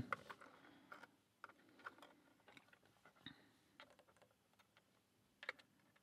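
Faint, scattered small metal clicks and taps of tubular lock parts being handled as pins and springs are set back into the housing, with a slightly louder double click about five and a half seconds in.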